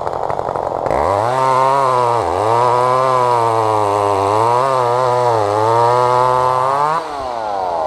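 A McCulloch two-stroke chainsaw idling, then throttled up about a second in and held at high revs, its speed dipping and recovering several times. The throttle is released about seven seconds in and the engine winds down.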